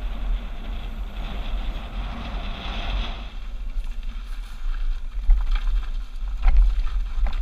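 Mountain bike riding downhill, heard from a camera on the rider: a steady low rumble of wind on the microphone, with tyre hiss on the dirt road for the first few seconds. Later come scattered clicks and rattles of the bike over the rough trail.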